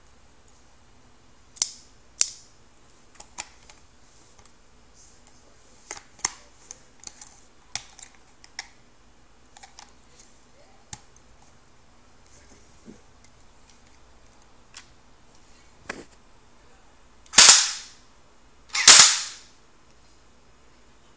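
Metallic clicks of a pistol being handled and worked, two of them sharp, then two loud pistol shots about a second and a half apart, each trailing off in a short ring.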